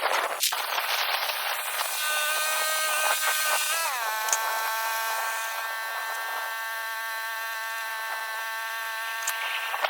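Small gasoline engine of a Woodland Mills HM126 portable bandsaw mill running under load while it saws pine. The pitch drops about four seconds in and then holds steady.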